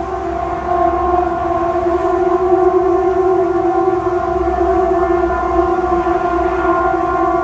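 Loud, steady, siren-like drone of several held tones, the kind of sound circulated as a mysterious 'strange sound in the sky'. It swells over the first second and then holds at one pitch without rising or falling.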